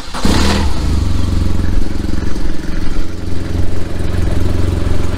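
BMW R1200GS Adventure's boxer twin engine catching just after the start and then idling steadily.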